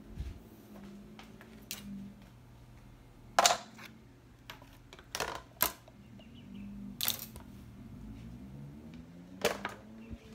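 Handling noise: several sharp clicks and knocks as the phone camera is carried and things are handled in a kitchen, the loudest about three and a half seconds in, over a low steady hum.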